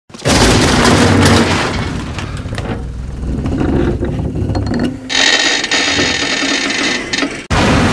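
Loud mechanical rumbling noise, with a hissing layer joining about five seconds in and cutting off sharply near the end.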